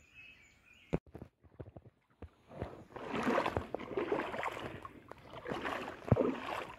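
Shallow creek water splashing and sloshing in an irregular, uneven way, beginning about two and a half seconds in after a quiet stretch with a couple of sharp clicks.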